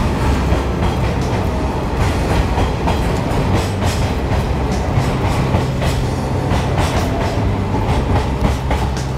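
Twilight Express 24-series sleeper coaches rolling past along the platform: a steady low rumble of wheels with frequent clicks from the rail joints.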